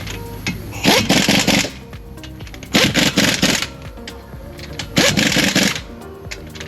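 Background music with a loud, rattling beat that hits about every two seconds.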